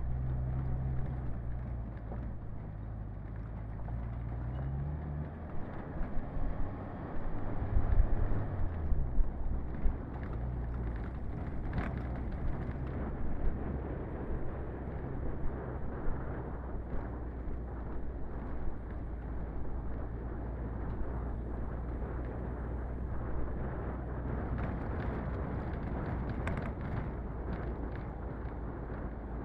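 Suzuki Feroza 4x4 engine running at low speed on a dirt track, with tyre and road noise. The engine note rises about four seconds in and drops near nine seconds. A stretch of knocks and rattles comes from about six to ten seconds in, with a few lighter clicks later.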